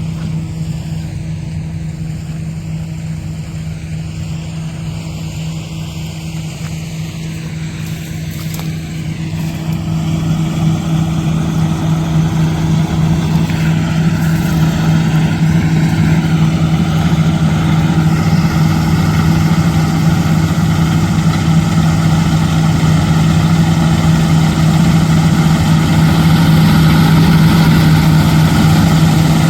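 Kartar combine harvester's diesel engine running steadily with a constant low hum while harvesting wheat. The sound gets louder and brighter from about ten seconds in and stays that way.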